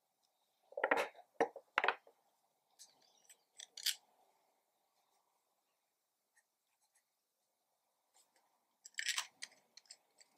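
Sailor Pro Gear Slim fountain pen handled with a few short clicks and taps about a second in and again near the end, and between them the faint scratch of its medium-fine steel nib writing on paper.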